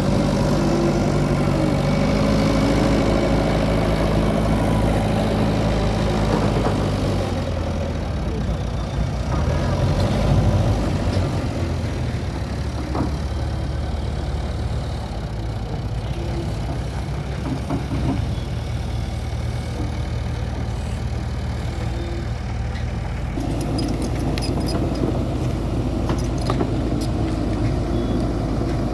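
Diesel engine of an earthmoving machine running under work, its engine note shifting a few times, with a few sharp clanks near the end.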